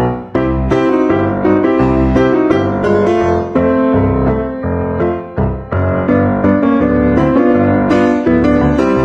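Background music: piano or electric piano playing a rhythmic pattern of chords over a steady bass beat.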